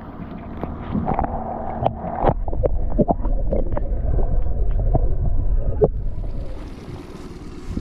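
Water gurgling and sloshing with many sharp knocks as a released perch goes back into the lake and the camera dips under the surface. A hiss of wind or water near the end.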